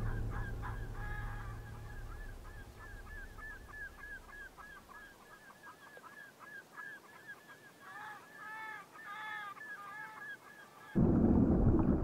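A flock of birds calling: many short, pitched calls overlapping, several a second, as music fades out at the start. Near the end a loud rushing noise cuts in abruptly.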